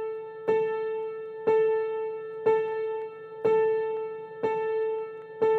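Background music: a keyboard, electric-piano-like, repeating the same single note about once a second, each note struck sharply and fading away.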